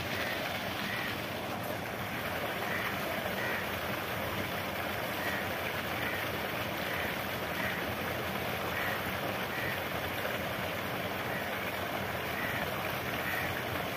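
Tube well water gushing steadily from an open iron outlet pipe and splashing into a concrete tank.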